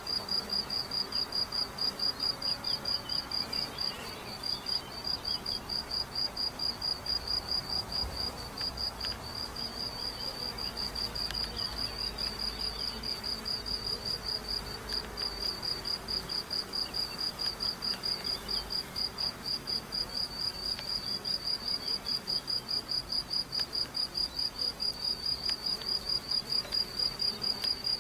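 A cricket chirping steadily and evenly, about three high chirps a second, with honeybees buzzing faintly at the hive entrance beneath it.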